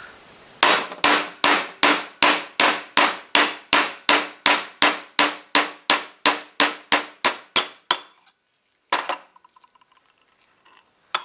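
Hammer striking a socket used as a drift to knock the bronze bushing out of a Puch Maxi moped's clutch bell: a steady run of about twenty blows, roughly three a second, each with a short metallic ring. After a pause, one more blow.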